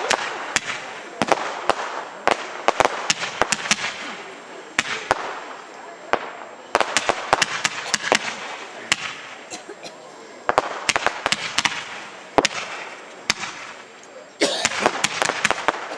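Aerial fireworks bursting overhead: runs of sharp bangs and crackles come in about four clusters, with a crackling hiss between them as the stars burn out.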